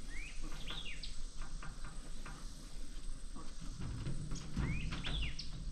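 Birds chirping in short rising notes, a few near the start and another cluster near the end, over a low outdoor rumble.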